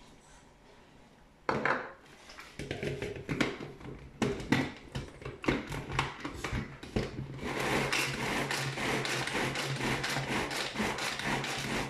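Tupperware Extra Chef pull-cord chopper mixing frozen raspberries and cream. The lid goes on with a sharp knock, then the cord is pulled over and over, with the blade clattering and scraping through the icy fruit. Halfway through the pulls turn fast and steady and the rattle runs on without a break.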